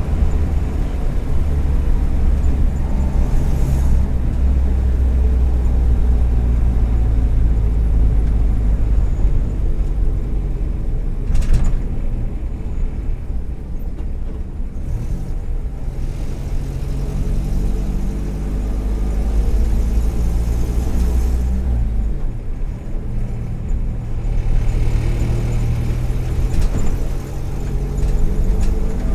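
Volkswagen Kombi's 1.4 litre EA111 four-cylinder engine running under way. There is a single sharp knock about eleven seconds in; the deep drone fades for a couple of seconds about two-thirds of the way through, and the pitch rises near the end. The ignition leads and coil are worn, which the owner says cause occasional misfires, and he takes the exhaust manifold to be probably cracked.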